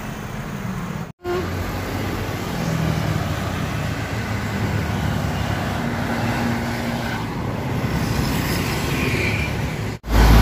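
Road traffic passing close by: a steady mix of car engine hum and tyre noise.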